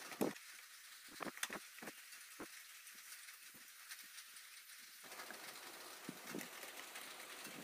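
Faint, scattered clicks and light knocks of metal parts being handled: a brass worm gear and its steel shaft are turned and fitted against an aluminium block.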